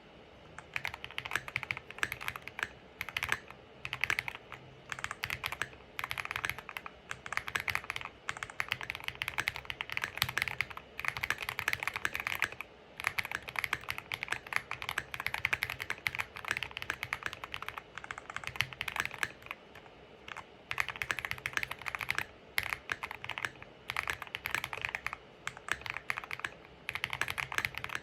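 Continuous typing on a QK60 mechanical keyboard with Zaku switches and Stabbies stabilizers: fast runs of keystroke clacks in bursts of a few seconds, broken by brief pauses.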